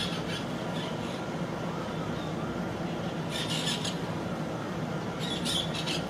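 Parakeets giving three bursts of shrill, chattering squawks, at the start, around the middle and near the end, over a steady low hum.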